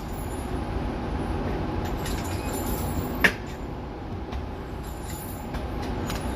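Steady low rumble of outdoor background noise, with a single sharp crack a little over three seconds in and a few faint ticks near the end.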